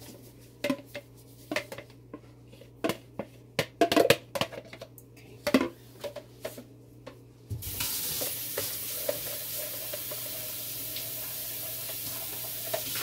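Silicone spatula stirring freshly poured lye solution into hot oils in a stainless steel pot, with irregular taps and clinks against the pot. About seven and a half seconds in, a steady hiss starts suddenly and continues.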